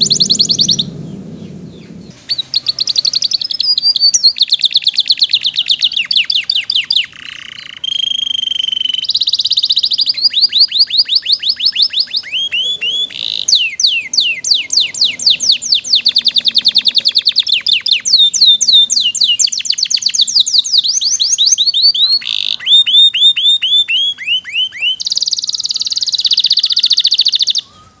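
Domestic canary singing loudly in long, rapid trills: fast runs of repeated falling notes, changing from one phrase to the next with short breaks between them. The song stops just before the end.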